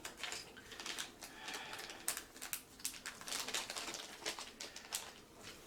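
Small metal 3D-printer springs and their plastic packaging being handled: a scatter of faint, irregular clicks and crinkly rustles.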